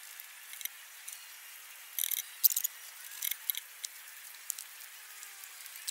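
Sisal rope rustling and scraping against wooden poles as it is wound around a bed frame, heard as a few short scratchy sounds over a faint steady hiss.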